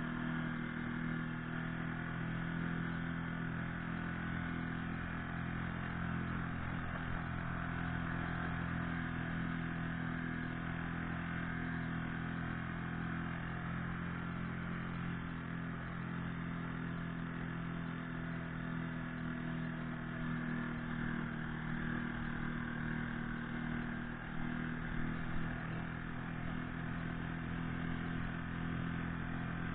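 Yamaha 4 hp outboard motor running steadily at a constant high speed, pushing an inflatable boat on the plane.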